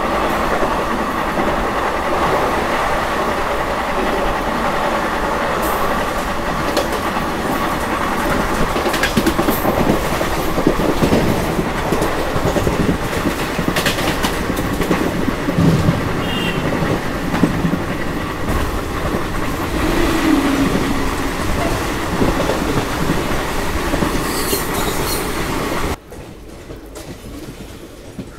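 Passenger express train running along the line: a steady rumble of wheels on rail with occasional clacks. About two seconds before the end it cuts off suddenly to a much quieter background.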